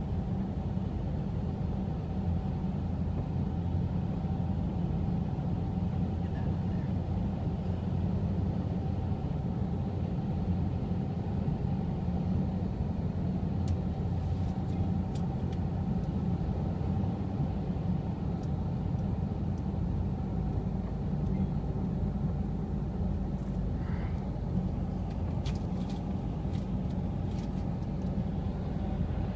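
Steady low road and engine noise of a car driving at an even speed, heard from inside the car.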